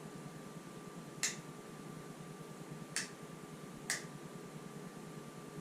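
Three sharp clicks, irregularly spaced: a motorcycle's handlebar high/low beam switch being flicked to test the high beam of a newly installed LED headlight.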